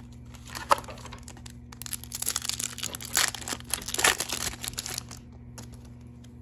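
Foil Pokémon booster pack being torn open and crinkled by hand: a dense crackling rustle lasting about three seconds, loudest in the middle, after a single sharp click about a second in.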